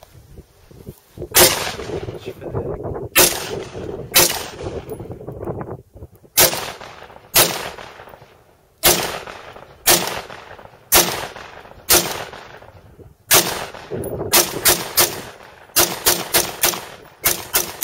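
Smith & Wesson M&P15 AR-15 rifle firing 5.56 mm M855 rounds semi-automatically, about twenty shots, each with a ringing echo. The shots start about a second apart, then come in a quicker string of rapid shots near the end.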